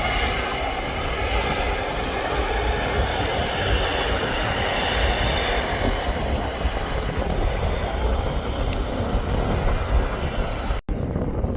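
Airplane engines running loud and steady, with a high whine over the noise during the first half that then fades into the rumble. The sound drops out completely for a split second near the end.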